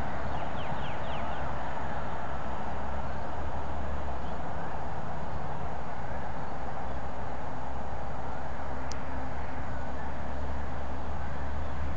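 Radio-controlled model plane flying, its motor a steady drone with slight shifts in pitch, over wind buffeting the microphone.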